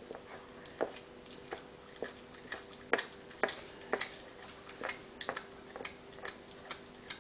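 A cat chewing raw meat and bone, with sharp, irregular crunches about once or twice a second, most frequent in the middle.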